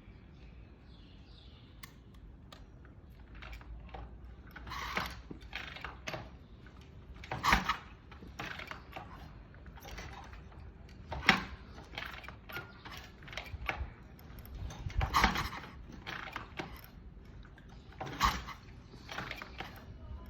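Harley-Davidson kick-starter being kicked over again and again, with about five heavy mechanical clunks a few seconds apart and ratchet-like clicking between them. The engine does not catch.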